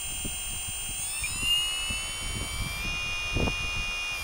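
Small outrunner electric motor spinning in the hand, giving a high-pitched whine of several steady tones that rises in pitch about a second in and drops slightly near three seconds, with a few dull handling bumps. The motor is being checked for a vibration fault that is felt more than heard.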